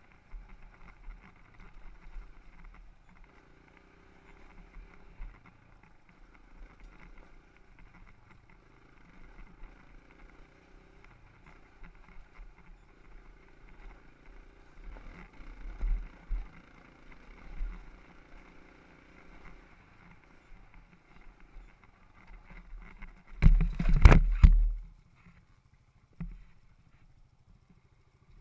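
Dirt bike engine running as it is ridden along a wooded trail, then near the end a sudden loud crashing clatter as the bike goes down in a spill.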